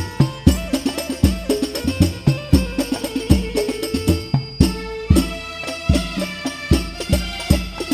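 Al-Banjari ensemble of rebana frame drums playing an interlocking rhythm, with deep bass-drum strokes about every half second to a second and a held melody line above the drumming.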